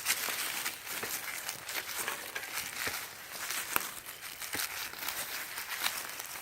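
Footsteps crunching through dry leaf litter and twigs: an irregular crackle with a few sharper snaps of breaking twigs.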